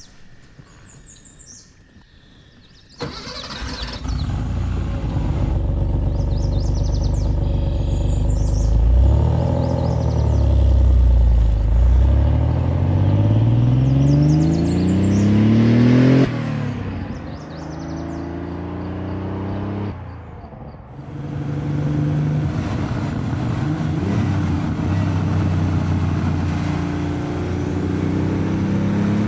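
Birds chirping, then about three seconds in a Porsche 930 Turbo's air-cooled turbocharged flat-six cuts in loud. It accelerates hard with a steadily rising pitch until it drops off sharply about halfway through, as at a gear change. It then runs at lower revs, dips briefly and pulls again near the end.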